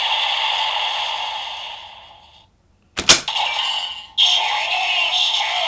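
Electronic sound effects from a DX Dooms Driver Buckle toy belt with the Omni Force Wonder Ride Book, fading out at the end of the Solomon Break finisher. After a brief silence there is a single sharp crack about three seconds in. About a second later the toy's electronic sound effects start again for the Solomon Stlash finisher.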